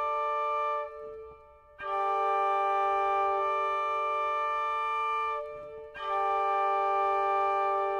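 Instrumental music: sustained organ-like chords held over a drone, with no singing. The held sound breaks off briefly twice, about a second in and again after about five seconds, each time coming straight back in.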